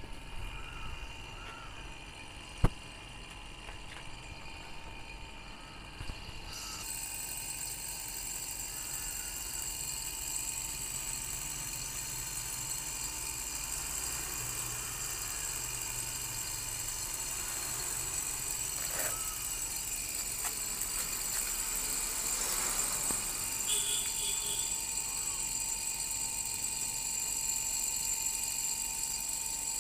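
Split air-conditioner outdoor unit running steadily during refrigerant charging, with a sharp click a few seconds in. An even high hiss joins about six seconds in and carries on.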